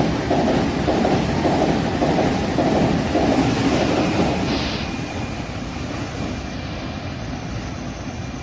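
Taiwan Railway PP Tze-Chiang push-pull express train passing at speed, its wheels clattering rhythmically over the rail joints. After about five seconds the sound fades as the train moves away.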